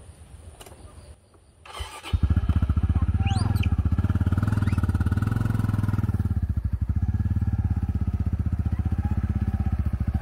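Motorbike engine starting up about two seconds in, then running steadily with a fast, even beat.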